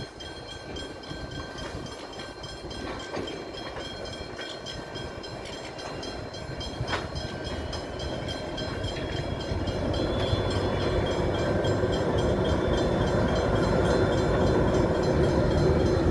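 Diesel-electric freight locomotives, led by a Pacific National NR-class unit, running as the train approaches, the engine rumble growing steadily louder through the second half. A single sharp click sounds about seven seconds in.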